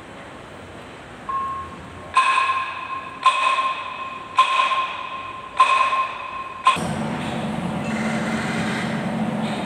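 Five sharp metallic strikes about a second apart, each followed by a ringing note. A steady machine hum starts suddenly near the end.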